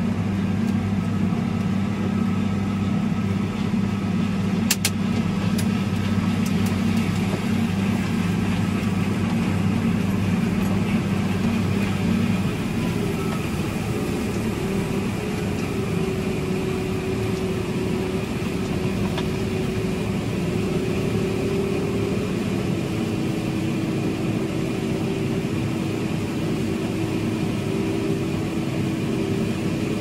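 Tractor engine running steadily, heard from inside its cab, with a combine harvesting corn close alongside. About twelve seconds in, the low drone gives way to a higher steady hum.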